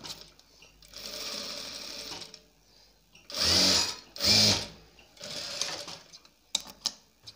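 Sewing machine stitching a kurti placket in several short runs, with two louder runs in the middle, then a few sharp clicks near the end.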